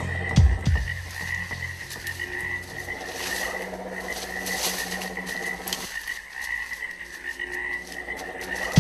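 Forest ambience: a steady, pulsing high-pitched chorus of calling small creatures runs throughout. About half a second in come two deep thuds that drop in pitch, with light scattered clicks in the middle.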